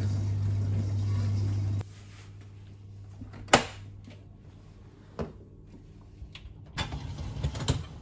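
Indesit dishwasher running with a steady hum, cut off abruptly about two seconds in. Then a sharp click as the door latch releases, a smaller knock, and a burst of rattling and clinking near the end as the door is opened onto the racked dishes.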